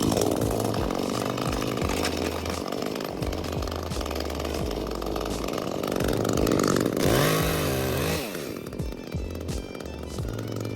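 Chainsaw running and cutting through small tree branches. Its engine pitch wavers down and back up about seven seconds in. Background music with a stepping bass line plays over it.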